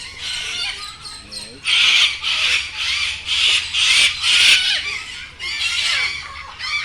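White cockatoo screeching: a run of about six harsh screams in quick succession, roughly two a second, starting a couple of seconds in, then one more near the end.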